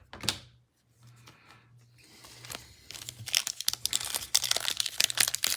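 Plastic-foil trading-card pack wrapper crinkling and being torn open: a dense run of crackles that starts about two seconds in and grows louder.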